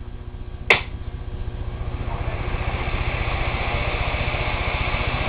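Electric fan switched on through an X10 appliance module: a single sharp click, then the fan's rushing air building over about two seconds to a steady level.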